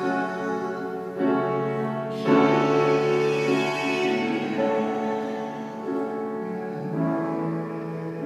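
Slow, quiet sacred music of held chords, a piano among the instruments. New chords come in about a second in, again, loudest, a little after two seconds, and once more near the end.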